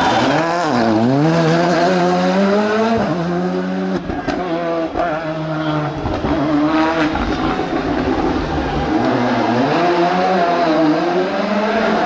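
Rally car engine at race pace. Its note drops sharply then climbs as the car brakes into the bend and accelerates out, then keeps rising and falling through the gear changes.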